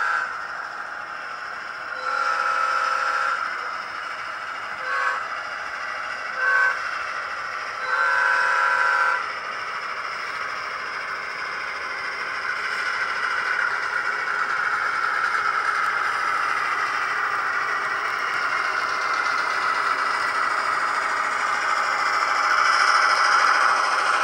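Chime horn of a sound-equipped S scale EMD E-unit model diesel: a long blast, two short toots and another long blast. Then the train rolls by with a steady clatter of metal wheels on the rails that grows louder as the cars pass close.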